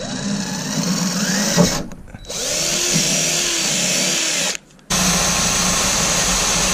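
Power drill spinning a step drill bit through the sheet-metal body panel of a school bus, cutting dry without oil, the bit squealing against the metal. The sound breaks off abruptly twice, and the last stretch is a steadier drill sound.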